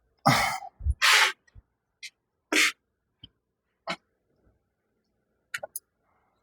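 Short, forceful breaths and grunts of a man straining, several in the first three seconds, followed by a few sharp clicks.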